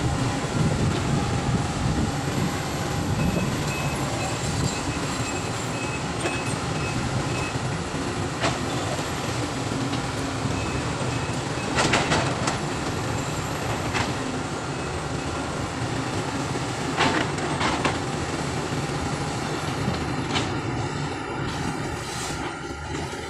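Sumitomo SH350 hydraulic excavator at work: its diesel engine runs steadily under load, with several sharp metallic clanks, the loudest about halfway through.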